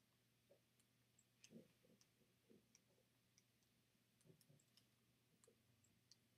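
Near silence with faint, irregular clicks of remote-control buttons being pressed to type a web address on a TV's on-screen keyboard.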